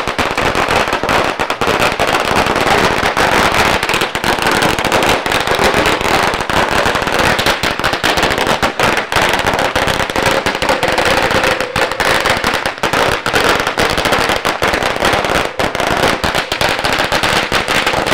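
Strings of firecrackers going off in a continuous, rapid crackle of bangs.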